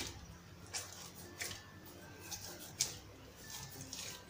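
Hands kneading soft, oiled dough in an earthenware bowl: faint wet squishing with a few short, sharp smacks as the dough is pressed and folded.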